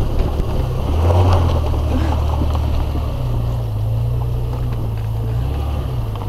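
1999 Jeep Cherokee Laredo's engine running under load as it crawls over a rough off-road trail. The engine note steps up about a second in, drops back, and changes again near three seconds and five and a half seconds as the throttle comes and goes.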